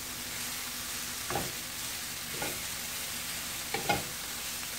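Carrot ribbons and broccoli sizzling in olive oil in a skillet, a steady hiss. A wooden spatula stirs them, scraping against the pan three times.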